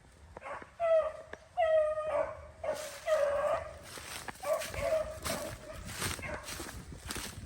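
Beagles baying on a rabbit's trail: a string of about six drawn-out, pitched bays, the sound of hounds running a rabbit. A rustling, crackling noise joins in from about two and a half seconds in.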